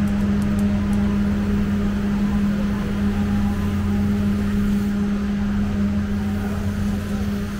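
A machine's steady low hum that holds one pitch without change, over a steady wash of background noise.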